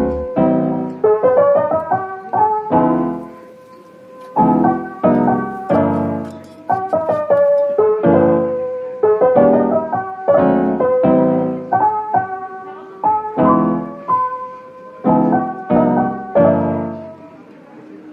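Background piano music: a run of struck notes and chords, each ringing and fading away.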